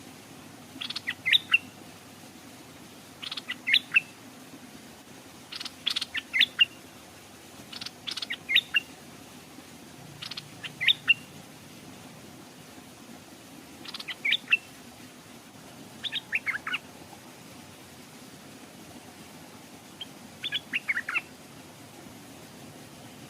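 Stripe-throated bulbul singing: eight short, loud phrases of quick falling notes, each under a second, repeated about every two seconds, with a longer pause before the last.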